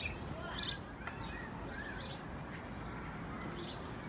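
Birds chirping: a few short, high chirps spread through, the loudest about half a second in, with some softer, lower chirps between them, over steady low outdoor background noise.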